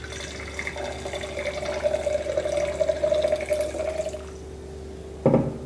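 White wine poured from a bottle into a wine glass, the stream splashing and gurgling as the glass fills, stopping about four seconds in.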